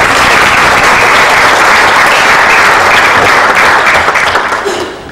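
Audience applauding, loud and steady, then dying away near the end.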